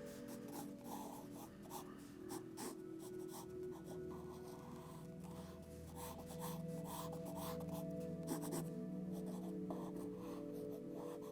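Sketching strokes scratching on paper, short and irregular, over soft sustained background music.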